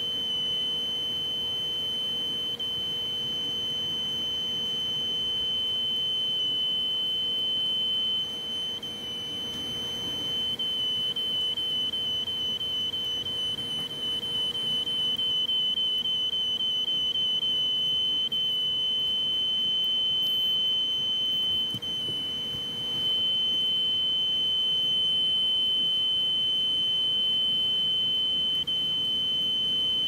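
Piezo buzzer of an electronic bird-whistle circuit sounding a steady high-pitched tone, with a rapid flutter on it for several seconds in the middle and a few brief dips.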